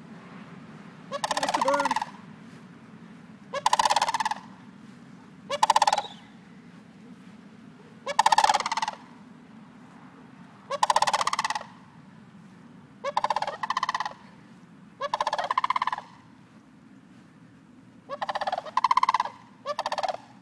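Sandhill cranes calling: about a dozen loud, rattling calls, each under a second long, coming every two or three seconds, over a low steady hum.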